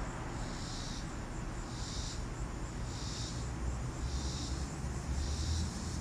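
Road traffic passing behind the yard as a low rumble that swells as a car goes by about four seconds in. Over it, an insect chorus pulses high-pitched about once a second.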